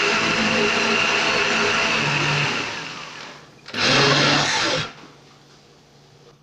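Electric countertop blender running at full speed through a jug of cooked carrots, oranges and peaches in liquid. Its motor winds down about three seconds in, gives one more short pulse of about a second, and then stops.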